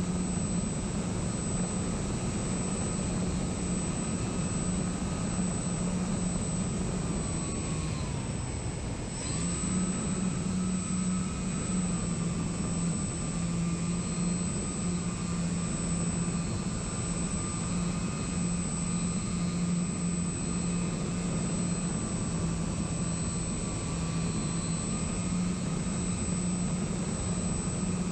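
Onboard sound of a model plane's electric motors and propellers droning steadily in flight, with wind rush and a steady high whine. The pitch drops as the throttle is eased back about eight seconds in, then rises again a second later.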